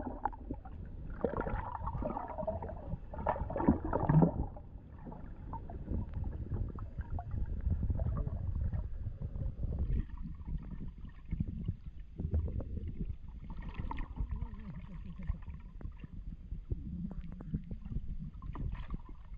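Muffled underwater noise from a submerged camera: a steady low rumble of moving water, with bursts of splashing and gurgling in the first few seconds and fainter ones later.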